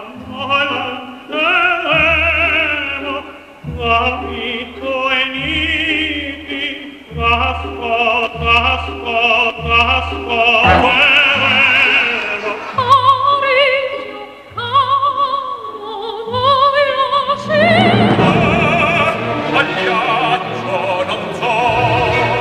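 Operatic singing with a strong vibrato over an orchestra.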